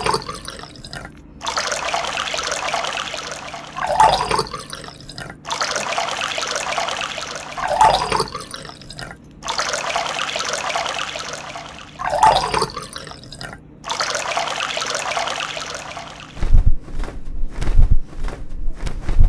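Water being poured or running in four separate pours of about two seconds each, roughly four seconds apart, each starting with a short louder splash. Near the end comes a quick run of low knocks and thumps.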